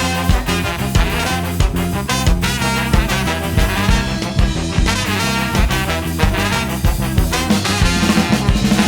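Live band playing an upbeat ska-swing tune, with a horn section, bass and drums keeping a steady driving beat.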